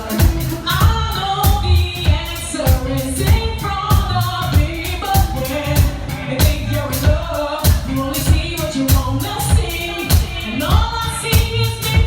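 Live R&B performance: a woman sings lead over a live band, with drums keeping a steady beat.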